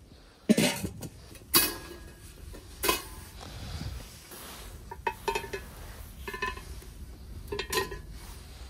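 Metal clanks and clinks from a Weber charcoal kettle grill's lid and wire cooking grate being handled. Three sharp knocks come in the first three seconds, then small clusters of light ringing clinks.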